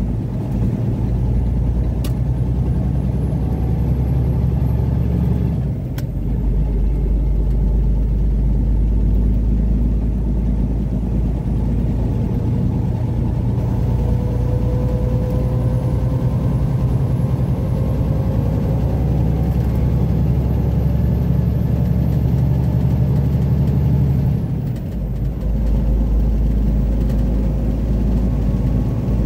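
Engine and road noise heard from inside a moving vehicle's cab: a steady low drone that dips briefly twice, about six and twenty-five seconds in, with a faint whine rising slowly in between.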